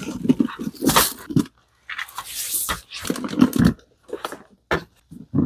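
A poodle eating duck-meat dog food: irregular chewing and mouth noises.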